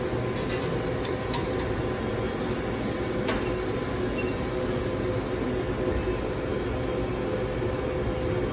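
CNC machining centre running, its axes driving the spindle slowly around a circle for a Renishaw ballbar test: a steady mechanical hum with a few steady whining tones from the drives. Two faint ticks come about one and three seconds in.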